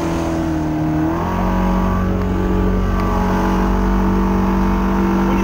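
Freshly rebuilt Mercury 115 outboard motor running at speed under way, a steady engine note whose pitch steps up a little about a second in as the revs rise.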